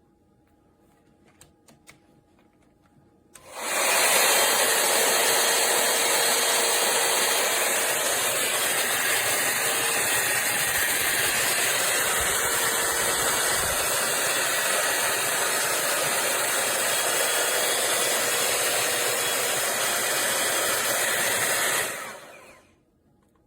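T3 AireBrush hot-air dryer brush blowing steadily. It switches on about three and a half seconds in and shuts off near the end, its fan winding down.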